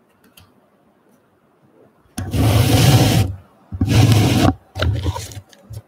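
Three loud rubbing scrapes of about a second each, from trading cards and card packs being handled and slid against a wooden tabletop.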